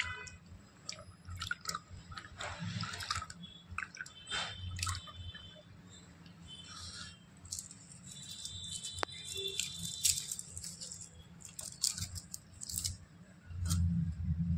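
Small splashes and drips of water as a hand stirs and rinses soaked cashews in a steel bowl, with scattered light clicks and clinks.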